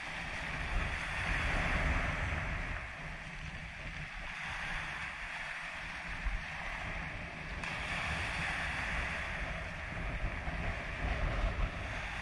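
Small sea waves breaking and washing up a pebble beach, the surf swelling as a wave comes in about a second in and again near the middle. Wind buffets the microphone with a low rumble underneath.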